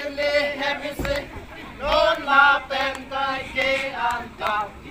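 A group of voices singing a chant-like song in short phrases of steady, held notes.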